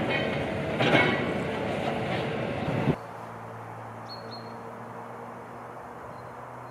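Outdoor construction-site noise, loud and rushing with two swells, cuts off abruptly about three seconds in. A quieter steady low hum follows, with two short high chirps about a second later.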